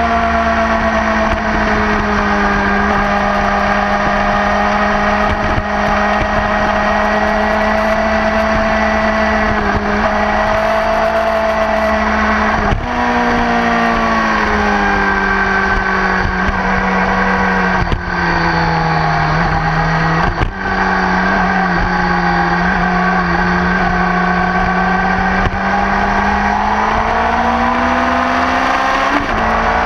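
Sport motorcycle engine running at speed over a low rush of wind noise. Its pitch jumps up briefly about thirteen seconds in, drops with two short breaks in loudness around eighteen and twenty seconds, then climbs again near the end.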